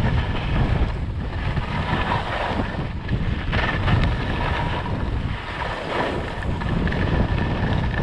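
Wind buffeting the microphone while skiing downhill, over a steady hiss and scrape of skis sliding on snow.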